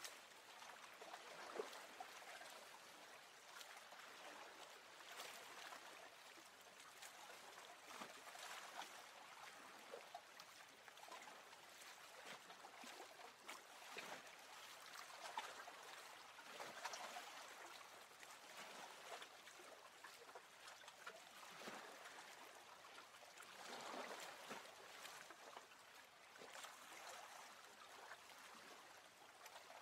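Faint water lapping and trickling, with small irregular splashes that come and go.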